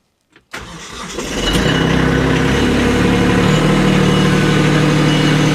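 Kubota LX2610 compact tractor's three-cylinder diesel engine running, coming in after a brief silence and picking up speed in a couple of steps before holding steady.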